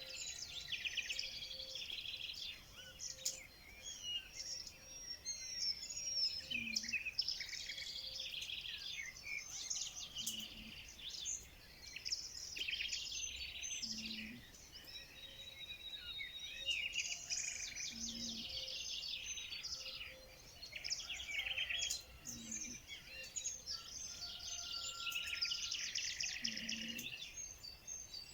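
Several songbirds singing at once in a dense, continuous chorus of chirps and trills, with a short low note repeating about every four seconds underneath.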